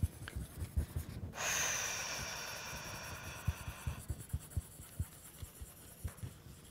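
Pencil writing on paper, with light scratching and many small soft knocks. About a second in, a breathy hiss starts sharply and fades away over about three seconds.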